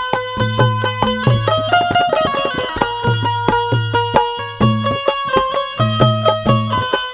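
Instrumental interlude of a Haryanvi nirgun bhajan: a melody played over a steady rhythm of low drum beats, with regular high percussion strokes.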